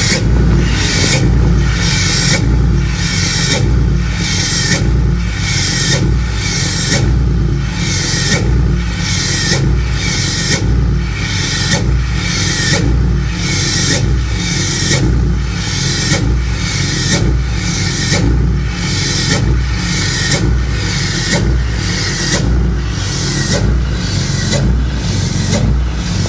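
6.7 Cummins inline-six turbo diesel running steadily, a strong low drone with a regular pulsing about twice a second.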